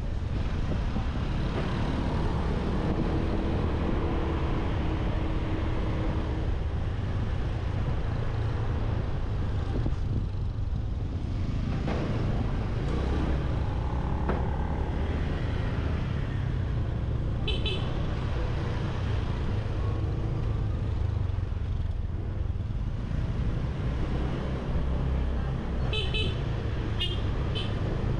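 Street traffic heard from a motorbike on the move: a steady low rumble of engine, wind and road, with passing vehicles and a few short horn toots.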